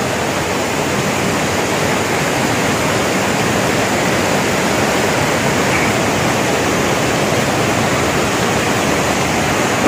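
Waterfall running, a loud, steady rush of falling water.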